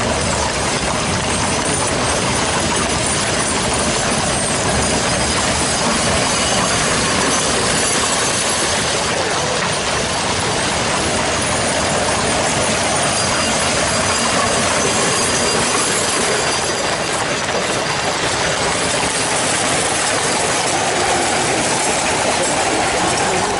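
Many horses' hooves clattering together with the rumble and rattle of carriage wheels as harnessed horse teams draw carriages past, a dense steady clatter.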